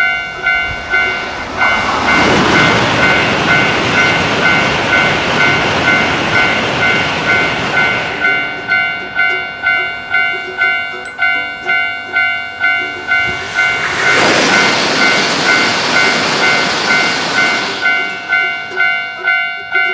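Railroad crossing bell dinging steadily, a little more than once a second. A train rushes past twice over it, from about two to eight seconds in and again from about fourteen to eighteen seconds in.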